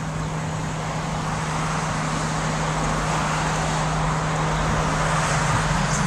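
Steady road and traffic noise from inside a moving car, with a constant low engine hum underneath.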